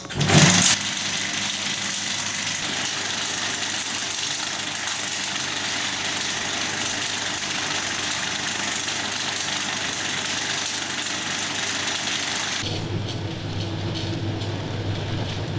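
An old film projector starts up with a sudden loud burst, then runs with a steady mechanical whirr and hiss. About three-quarters of the way through it gives way to a lower, steady motor hum.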